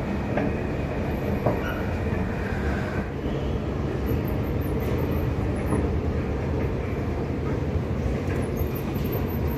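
Escalator running, a steady low mechanical rumble heard while riding it.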